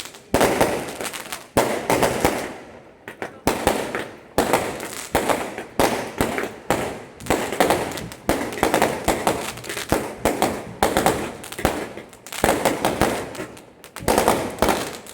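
Fireworks going off in quick succession: a string of sharp bangs, about one to two a second, each trailing off before the next.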